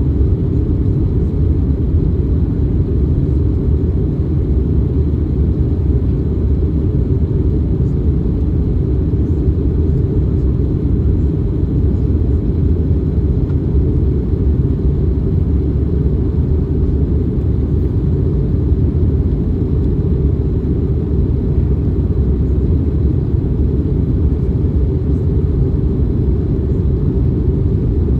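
Steady cabin noise of an Airbus A321neo in flight: a loud, even, deep rumble of engines and airflow heard from inside the cabin.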